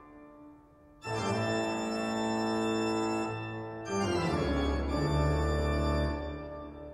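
Background music: sustained organ chords. A chord swells in about a second in, changes to a new chord near the middle, and fades out near the end.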